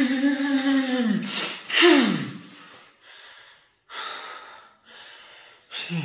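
A man's long held shout that tails off about a second in, a short loud cry falling in pitch, then heavy breathing in several noisy breaths: he is out of breath after celebrating a goal.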